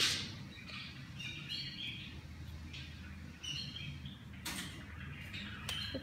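Pet budgerigars giving several short, high chirps, with a brief rustle about three-quarters of the way through.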